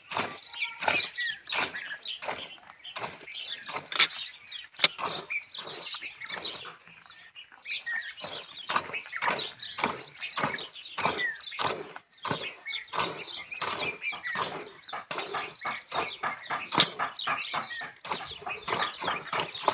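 Milk squirting by hand from a cow's teats into a steel pail of frothy milk, in a steady rhythm of about two to three squirts a second.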